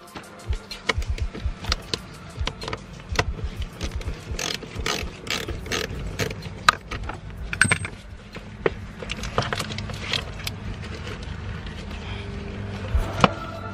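Ratchet wrench with a socket clicking in runs of quick clicks, turning a bolt on the car battery's fastenings.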